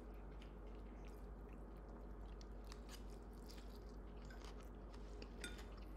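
Faint chewing and slurping of a mouthful of rice vermicelli noodles, with a few light clicks near the end.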